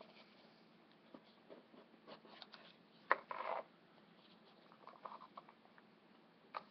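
Quiet handling of a trading-card box as it is opened: scattered small clicks and scratches, with a sharp click about three seconds in followed by a brief rustle.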